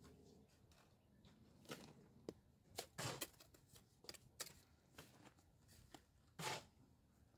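Masonry trowel scraping and tapping against stones and wet mortar: a scattered series of short scrapes and clicks, the loudest about three seconds and six and a half seconds in.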